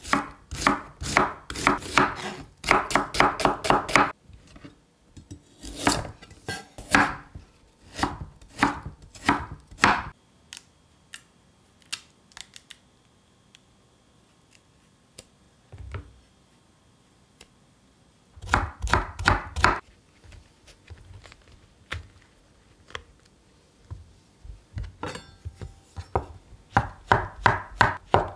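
Chef's knife chopping vegetables (onion, carrot, shiitake mushroom) on a wooden cutting board. The strokes come in quick runs of sharp knocks against the board, with pauses between the runs.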